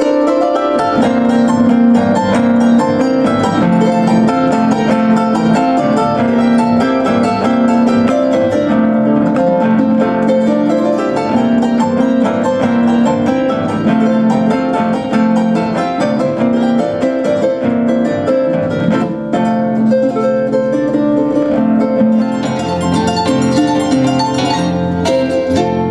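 Live harp music: fast plucked notes over strong lower notes.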